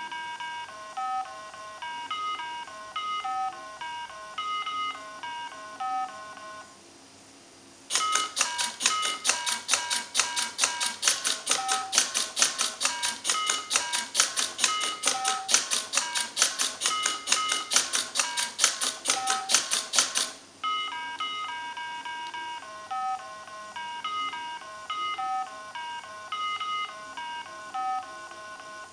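Mini Simon electronic memory game beeping out a sequence of its button tones. Then comes a stretch of rapid mechanical clicking, several clicks a second, over the same beeps as the robot presses the buttons to repeat the sequence. After that Simon beeps out the next sequence.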